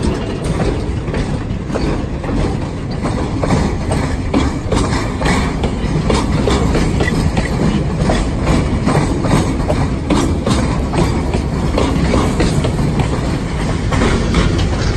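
Loaded freight flatcars rolling past close by: a steady low rumble of steel wheels on the rails, with frequent clicks and clacks from the wheels.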